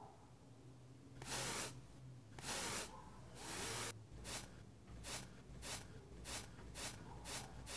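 Paintbrush scrubbing across canvas: three longer hissing strokes, then a run of about seven short, quick strokes.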